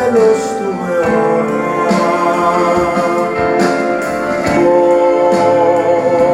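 Music played back over a high-end hi-fi system: a slow piece with long, held instrumental notes.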